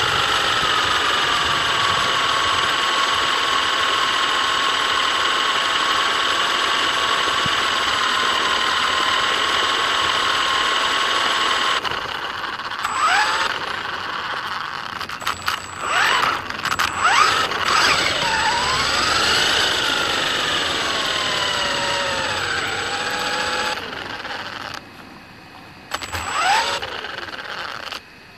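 Absima AB1BL RC buggy's electric motor whining at a steady pitch for about the first twelve seconds, then in short rising and falling sweeps as the car speeds up and slows down.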